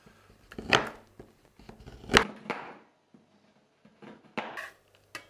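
Chef's knife chopping a block of dark chocolate on a wooden cutting board: a few separate sharp knocks of the blade hitting the board, the loudest about two seconds in.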